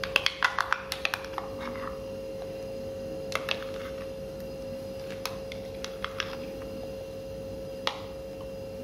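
Plastic spoon scraping and tapping against a steel mixer-grinder jar and a glass bowl as thick cream is scooped out: a quick run of clicks in the first second or so, then scattered single clicks. A faint steady hum runs underneath.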